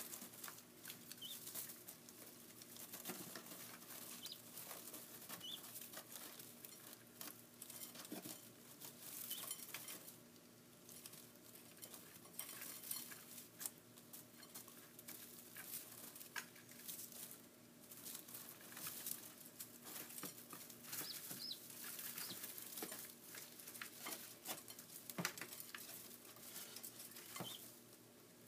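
Day-old guinea fowl keets scratching and pecking in straw bedding, a faint dense patter of rustles, light clicks and taps, with a few short high peeps.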